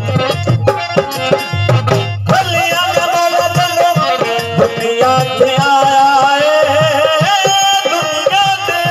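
Harmonium and dholak playing a folk tune. Dense dholak strokes lead for about the first two seconds, then the harmonium carries a held melody over lighter drumming.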